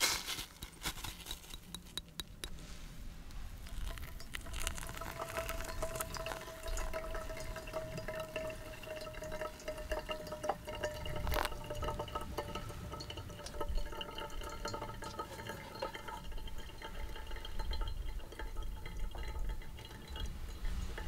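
Hot water pouring in a thin stream from a gooseneck kettle onto coffee grounds in a paper pour-over filter, with the brewed coffee trickling and dripping into the mug below. A steady ringing tone runs through the pour, and a few sharp clicks stand out.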